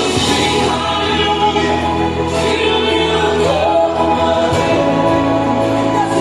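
Gospel music with a choir singing, loud and continuous.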